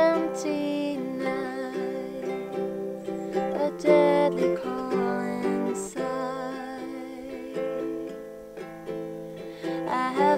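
A woman singing a slow, gentle song, her voice wavering on held notes, accompanied by strummed chords on a ukulele.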